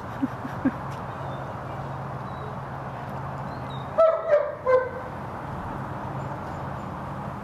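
A dog barks three times in quick succession about four seconds in, over a steady low hum. Two short sharp sounds come near the start.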